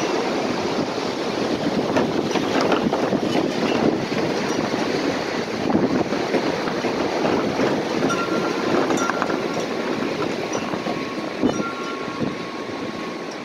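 Gusty wind blowing, a loud, uneven rushing. In the second half, a wind chime rings faintly, a few clear tones over the wind.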